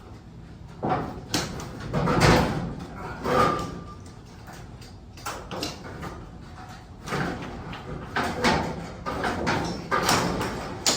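Irregular scraping and clanking of a metal sectional garage door and its hardware being worked on: a string of uneven noisy bursts, one with a short ringing tone.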